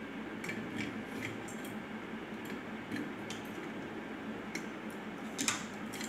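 Light, scattered clicks and taps of a ring-necked parakeet's claws and beak on a brass-and-glass stand as it climbs onto it, the sharpest tap near the end, over a steady low hum.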